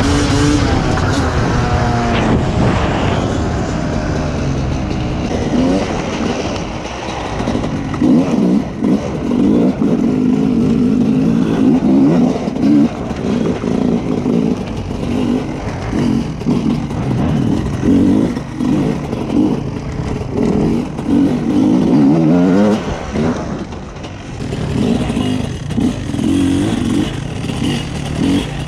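Two-stroke enduro motorcycle engine riding off-road, its revs climbing and dropping again and again as the throttle is worked, with a dip about three-quarters of the way in.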